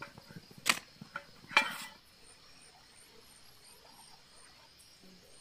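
A few sharp clicks and a short scraping rustle in the first two seconds as food and camp cookware are handled, over a steady chorus of night insects with a regular high chirp.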